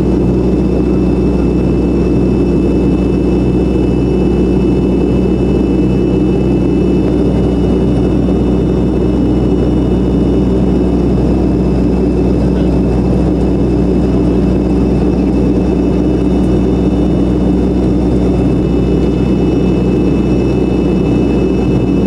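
Steady engine noise of an airplane in flight, heard inside the passenger cabin: an even low drone with a few faint, steady high whining tones above it.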